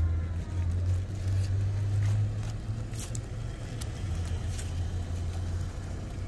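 Low rumble of a vehicle engine that fades near the end, with a few crisp crunches of a knife slicing through pineapple rind.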